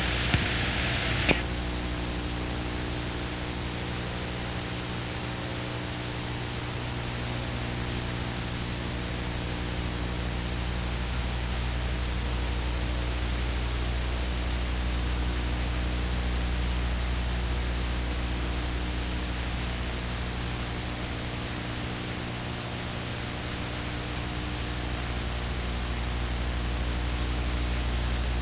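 Steady hiss with a low electrical hum and its overtones, from an old analogue video soundtrack with no other sound on it. A brighter hiss cuts off with a click about a second in.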